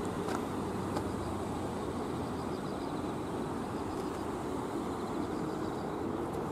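Steady outdoor hum of distant road traffic, with faint high chirps now and then.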